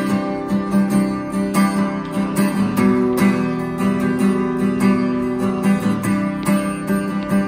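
Acoustic guitar strummed in a steady rhythm, sustained chords ringing between the strokes, with no voice.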